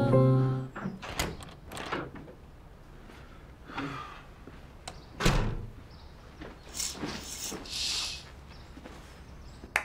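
Background music fades out, then a room door opens and thuds shut amid footsteps on the floor. Near the end come soft swishes of curtain fabric being drawn, and a click.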